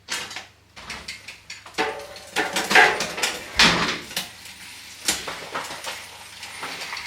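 Irregular knocks, clicks and rattles from the mountain bike being handled and moved about, loudest about three to four seconds in.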